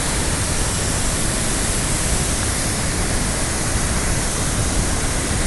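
Waterfall on a large river: a loud, steady rush of falling water.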